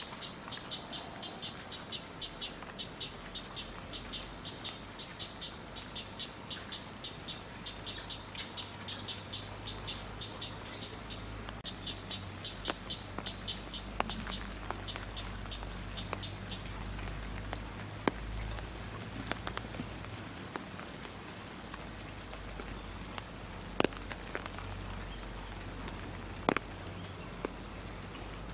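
A rapid, regular high chirping call, about four chirps a second, that fades out about two-thirds of the way through. After that come scattered sharp drips of rain over a low rumble.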